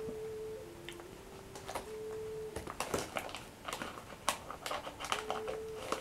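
A woman humming long held notes that step between a few close pitches. In the second half, a cluster of sharp crackles and clicks sounds over and between the notes.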